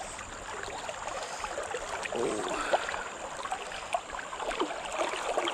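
Shallow river water rushing and gurgling around a wading angler's legs, with many small splashes and ticks.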